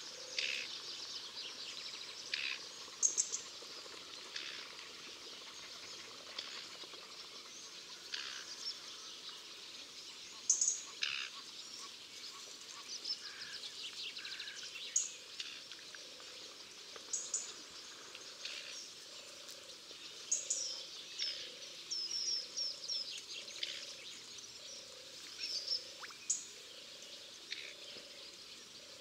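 Pond at night with frogs croaking in short scattered calls and a few high chirps over them. In the second half a lower, evenly spaced call repeats a little more than once a second.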